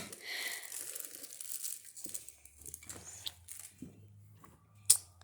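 Crinkling and rustling of a piece of cardboard being handled and crumpled, with scattered small knocks and one sharp tap near the end.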